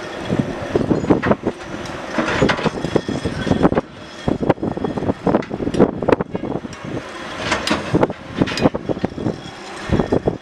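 Jet engines of a LOT Boeing 787-8 Dreamliner on the runway: a loud, uneven rumble broken by irregular crackling bursts, with no steady whine.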